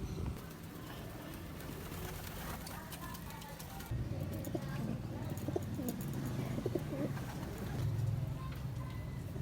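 Racing pigeons cooing, low and pulsing, growing louder about four seconds in.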